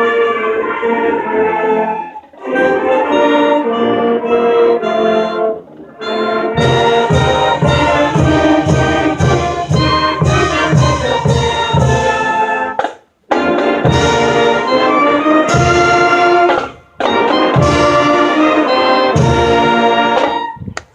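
High school marching band playing, brass chords in phrases broken by brief pauses, with a steady low drum beat about twice a second through the middle.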